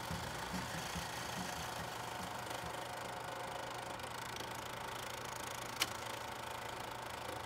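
Steady mechanical whirr with a faint rattle, the running sound of an old film projector added as an effect, with a single sharp click about six seconds in.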